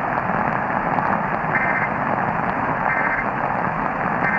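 Three short bursts of EAS end-of-message digital data tones, a two-tone warbling chirp, a little over a second apart, signalling the end of the alert test. They play over the steady hiss and static of AM broadcast radio reception.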